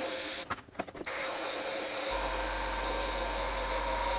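Gravity-feed airbrush spraying paint: a steady airy hiss that breaks off for about half a second near the start, with a couple of faint clicks, then resumes. A low steady hum joins about two seconds in.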